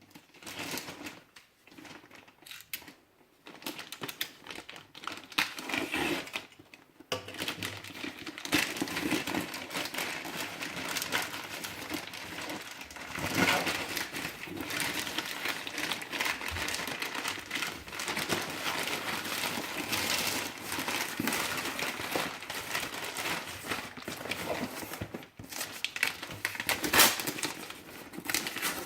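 Packaging being handled and unwrapped by hand: crinkling and rustling with many irregular small clicks and scrapes, sparse for the first few seconds and then nearly continuous.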